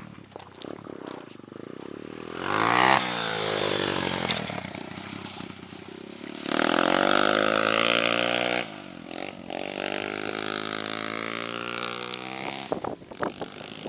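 140cc Orion pit bike's single-cylinder four-stroke engine running and being revved. Its pitch rises and falls sharply about two and a half seconds in, then it is held high and loud for about two seconds before dropping back to a lower, steadier run. A few sharp knocks come near the end.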